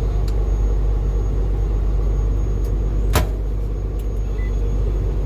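Steady low rumble of an idling truck engine, with one sharp click about three seconds in.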